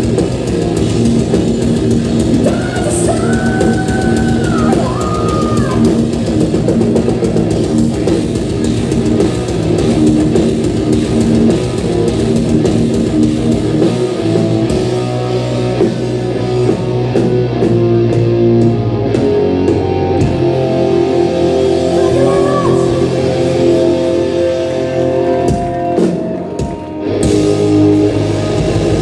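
Live hard rock band playing loud, with distorted electric guitars and a pounding drum kit. About halfway through, the steady drumbeat drops away and held guitar chords ring on.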